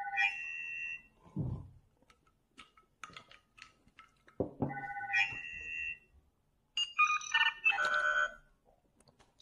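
Short electronic chime jingles from an instant-win lottery game, three of them about a second each: one at the start, one about five seconds in, and a busier run of stepping tones near the end.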